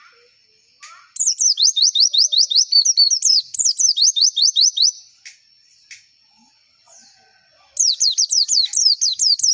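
Pleci (white-eye) singing in two fast runs of sharp down-slurred whistled notes, about six a second. The first run lasts about four seconds and a shorter one starts near the end.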